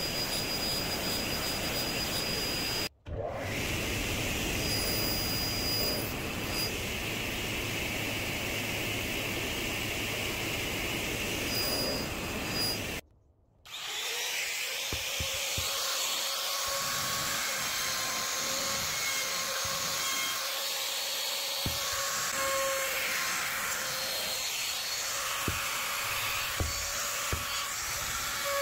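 Sliding table saw running with dust extraction, sawing oak, a steady whine and hiss. About halfway the low rumble drops away, leaving a steady machine hum with light knocks of oak pieces being handled and set down.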